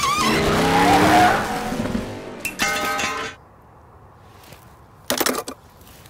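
Animated-film race car sound: an engine and tyre noise whose pitch falls over the first two seconds, followed by a held chord that cuts off abruptly about three seconds in. Then a low outdoor hush, broken once near the end by a brief rustling burst.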